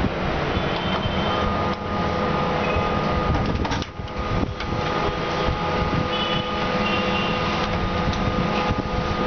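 A machine running steadily, a continuous mechanical noise with a steady hum, dipping briefly about four seconds in.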